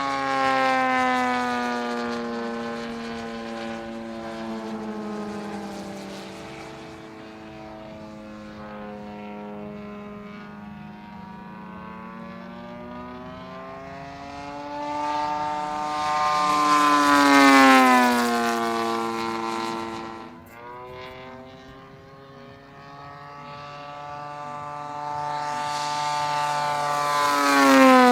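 Electric-powered scale P-51 Mustang model plane flying past, its motor and propeller whine rising and falling in pitch as it circles. It is loudest on two close passes, about two-thirds of the way through and at the very end, the pitch dropping as it goes by each time.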